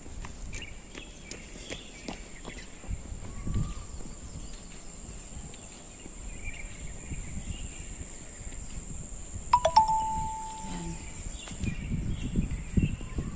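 Outdoor ambience: birds chirping, a steady high-pitched hum, and wind rumbling on the microphone, with a single short ringing ding about ten seconds in.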